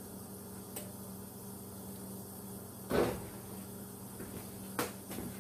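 A lump of raw sausage set down into an empty metal skillet: one dull thump about three seconds in, with a faint click before it and another near the end, over a steady low hum.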